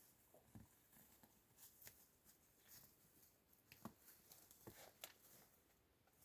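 Near silence with faint, irregular soft steps and rustles, footsteps of a hiker walking on forest ground.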